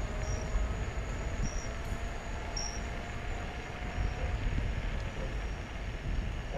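EcoReco M5 electric scooter ridden along a street: low rumble of wind and road noise on the microphone, with a faint motor whine slowly rising in pitch.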